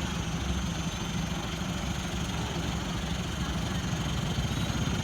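A vehicle engine running steadily at idle, a low, even rumble.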